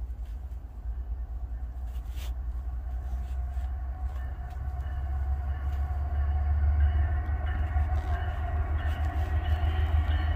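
Diesel freight train approaching: a low engine rumble that grows steadily louder, with steady higher tones coming in over the second half.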